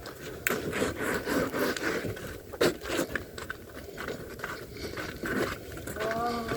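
Footsteps crunching and scraping through snow mixed with sleet, an irregular stroke or two a second. A short voice-like call comes near the end.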